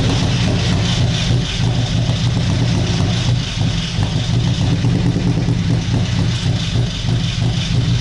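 Ford Sierra engine running steadily with a fast, even ticking, knocking from the top end and misfiring on one cylinder (running on three).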